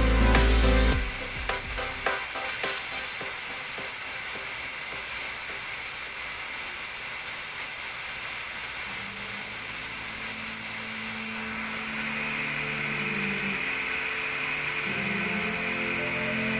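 A steady mechanical hiss, like a small motor or blower running, that takes over as music cuts off about a second in; faint low hum tones come and go from about halfway.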